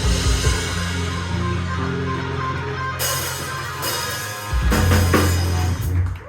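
Rock band playing the closing bars of a song: drum kit, bass and guitar over held low notes, with cymbal crashes in the second half and a final held chord that cuts off just before the end.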